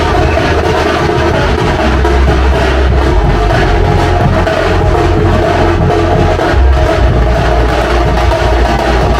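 A Minangkabau tambua drum troupe playing large rope-tensioned double-headed drums together with frame drums, in dense, continuous drumming.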